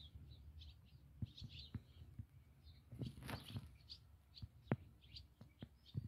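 Indesit EcoTime washing machine during its final rinse with the drum motor quiet: faint, irregular small ticks and knocks, with water settling in the drum.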